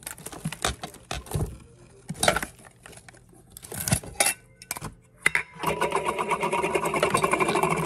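Kitchen containers knocked and set down on a counter, then a dense, rapid mechanical rattle for about two seconds near the end.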